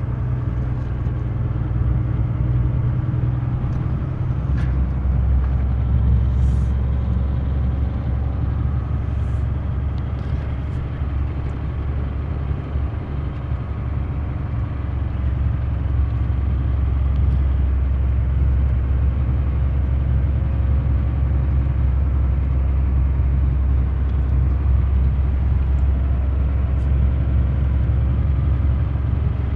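Steady low engine and road rumble of a vehicle driving along, heard from inside the cab.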